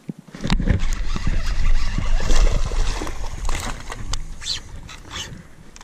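Water sloshing and splashing beside a small fishing boat, with knocks and rod handling, while a bass is played toward the net. It starts abruptly about half a second in and eases off toward the end.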